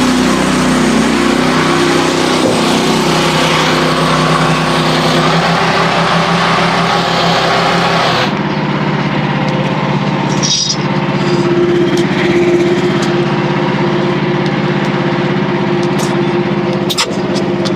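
Gas-engine portable band sawmill cutting a red oak log: the engine runs under load beneath the hiss of the band blade in the wood. About eight seconds in, the cutting hiss stops sharply and the engine runs on steadily, with a few short knocks near the end.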